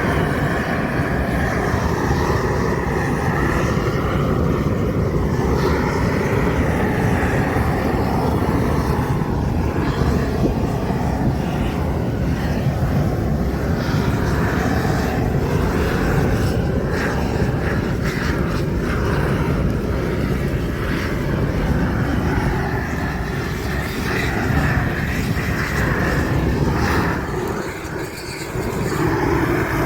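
Steady engine drone, with a brief dip near the end.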